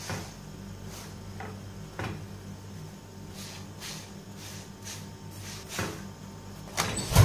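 A roti being pressed and patted with a folded cloth on a hot tawa, making soft dabbing thumps over a steady low hum. Near the end there are louder knocks as the roti is lifted and turned on the griddle.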